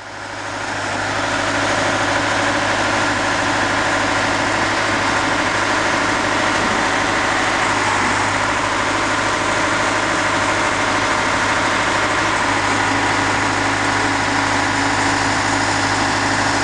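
A heavy engine running steadily, with a constant low hum under a dense hiss. It fades in over the first second or so.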